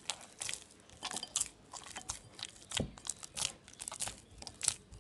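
Pita bread dough being kneaded by hand in a glass bowl, with a spoonful of yogurt being worked in: a quick, irregular run of short, wet, sticky sounds, several a second, as the dough is pressed and pulled.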